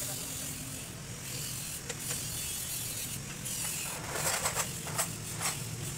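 Mechanical clicking and clanking of hand tools working on metal parts, with a cluster of sharper clicks in the second half, over a steady low hum.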